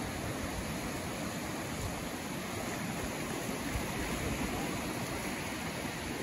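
Surf breaking and washing up the beach in a steady rush.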